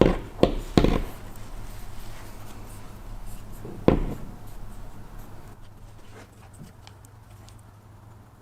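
Handling noises from hand-fitting piston rings onto a motorcycle piston at a workbench: three sharp knocks within the first second and another about four seconds in, then faint small clicks, over a steady low hum.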